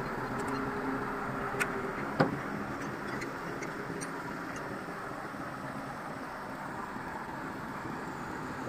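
Tadano truck-mounted crane's diesel engine running steadily while it holds a large steel tank on its hook, with two sharp clicks about one and a half and two seconds in.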